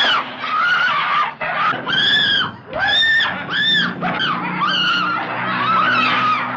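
A woman screaming in terror over and over in short, high-pitched shrieks, each rising and falling, with only brief breaths between them.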